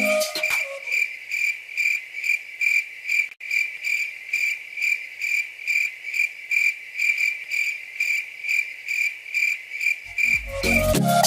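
Cricket chirping, used as an edited-in 'awkward silence' sound effect: a high, even chirp repeating about three times a second, with a brief break about three seconds in.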